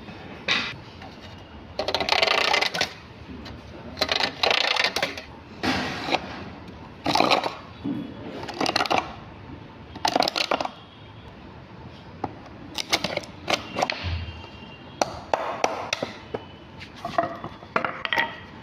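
Hand work on wood: a series of scraping strokes about one to two seconds apart, followed by lighter clicks and taps.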